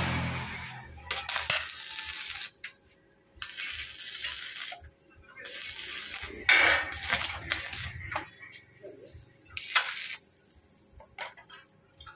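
Stick arc welder crackling in several short runs, starting and stopping, as a pipe handle is welded onto a steel hammer head held in a vise. Short metallic clicks follow near the end.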